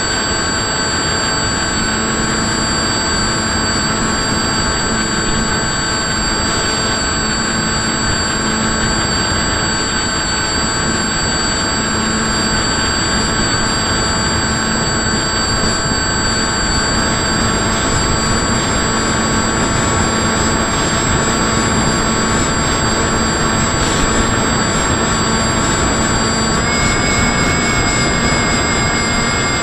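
Electric motor and propeller of an FPV model aircraft, heard through its onboard camera: a steady whine over wind rush, stepping up slightly in pitch near the end as the throttle changes.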